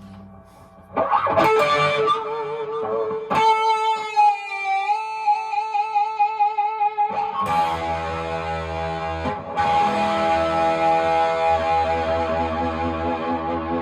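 Electric guitar played with a slide through effects and some distortion: sustained notes that waver and glide, then fuller chords over a low bass from about halfway through.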